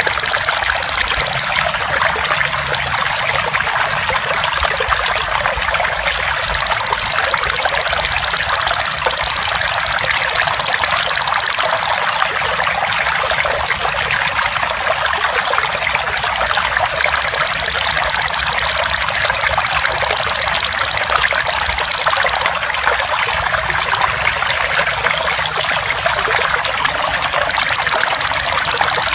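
Water trickling steadily, with a belalang emas (golden grasshopper) insect's high, loud trill that switches on and off in bouts of about five seconds. It is on briefly at the start, again from about six to twelve seconds and seventeen to twenty-two seconds in, and once more near the end.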